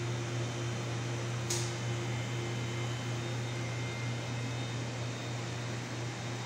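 Steady low machine hum under an even hiss, like a fan or air-conditioning unit running in a room. There is one brief click about a second and a half in.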